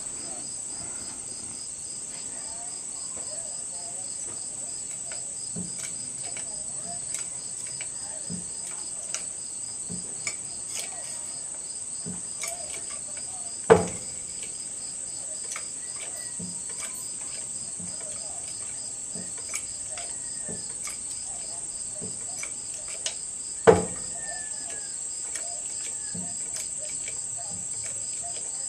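Steady insect chorus: a continuous high trill with a faster pulsing one beneath it, and faint bird chirps. Two sharp knocks stand out, one about halfway through and one about ten seconds later.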